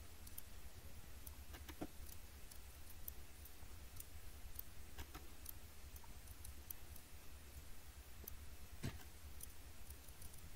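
Faint, scattered computer mouse clicks over a low steady hum, with the sharpest click about 9 seconds in.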